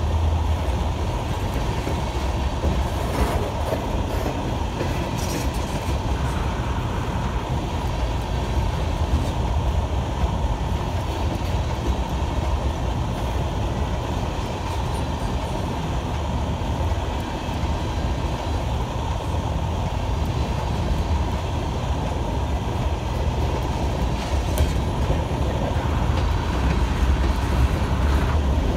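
Empty open-top coal cars rolling past at steady speed: a continuous rumble of steel wheels on the rail, with a few sharp clicks from the wheels and couplings.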